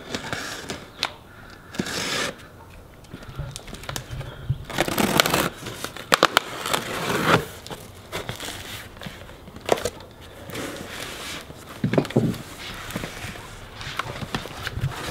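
A large cardboard shipping box being opened by hand: flaps scraping, rubbing and crinkling in irregular bursts, loudest and busiest about a third of the way through to halfway.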